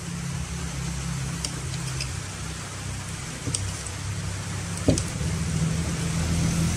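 A kitchen knife slicing a tomato on a plate, with a few faint clicks as the blade meets the plate, over a steady low hum.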